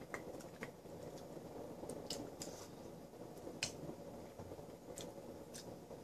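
A person eating from a bowl with a spoon: scattered sharp clicks and smacks of chewing and of the metal spoon against the bowl, about a dozen spread over the few seconds, over a low steady room hum.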